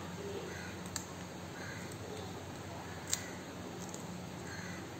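Light handling of a plastic pry tool on a laptop keyboard's taped ribbon cable: two small sharp clicks, about a second in and about three seconds in, the second louder, over a low steady hum.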